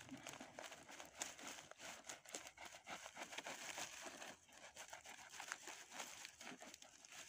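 Faint crinkling and rustling of a thin plastic carrier bag as a loaf of bread is handled in it, a dense run of small irregular crackles.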